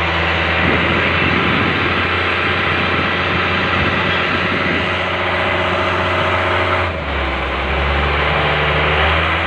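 A fishing boat's engine running steadily, a continuous low hum with overtones. Its note changes abruptly about seven seconds in.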